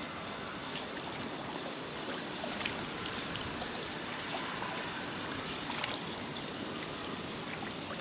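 Steady rushing outdoor background noise of river water and wind, with a few faint clicks scattered through.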